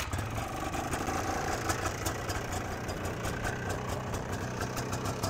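Polaris Trail Blazer 250's single-cylinder two-stroke engine idling steadily, with a fast even pulse.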